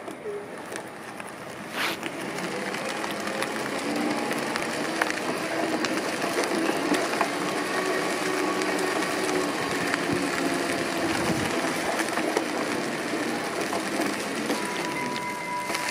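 AddSeat electric self-balancing seat rolling on its knobby rubber tyres over gritty asphalt, with a steady rolling noise, a faint motor whine and scattered small ticks and clicks. It builds up about two seconds in as the machine gets moving.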